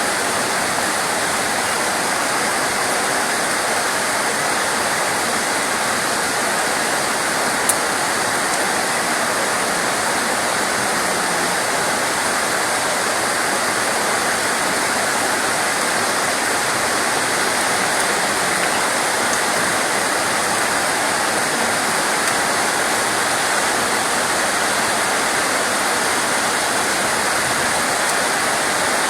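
Steady rain: an even, unbroken hiss of falling water, with one sharp tick about eight seconds in.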